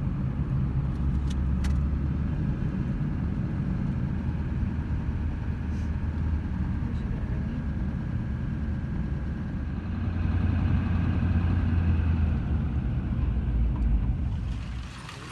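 Road noise inside a moving car: a steady low engine and tyre rumble, growing louder about ten seconds in.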